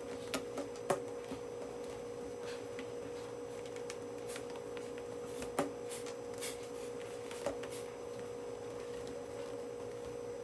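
Rubber bands being stretched and wrapped around a scrunched T-shirt, with soft fabric handling and a few light snaps and taps on the tabletop, the sharpest about a second in and again past the middle, over a steady electrical hum.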